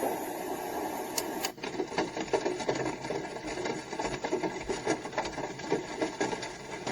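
Sleep sound machine playing one of its soothing-sound tracks through its small speaker: a dense, crackly noise of many tiny ticks. Two clicks about a second in, after which the sound changes as the next track starts.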